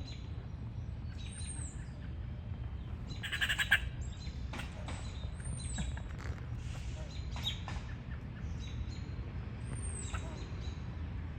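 Birds calling: short high arched call notes repeat every four to five seconds, with scattered chirps. A single loud, harsh, buzzy call comes about three and a half seconds in.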